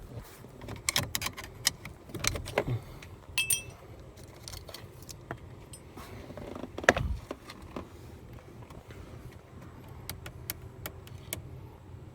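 Car keys jangling and clicking against the ignition lock of a Honda City as the key is worked in a lock that is jammed between the 0 and 1 positions. There are scattered metal clicks, a brief high ring a few seconds in and one louder knock about seven seconds in.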